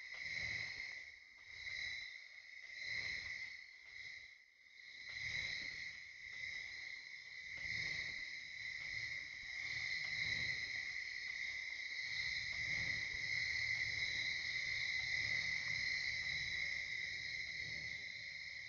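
A steady chorus of insects such as crickets trilling without a break, over a low rumble that swells and fades.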